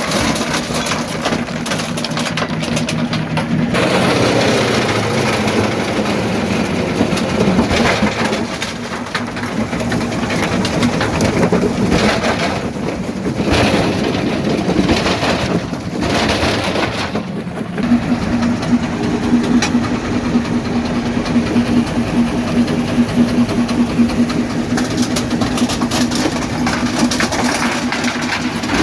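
Quarry jaw crusher running and crushing rock: dense grinding and cracking with repeated knocks over a steady machine hum. The hum grows stronger about two-thirds of the way through.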